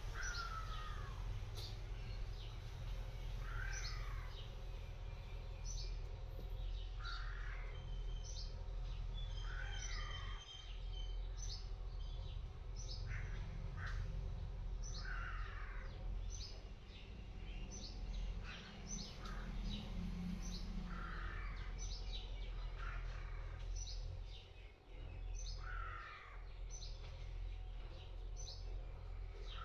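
Crows cawing over and over, a call every second or two, with other birds chirping, over a steady low outdoor rumble.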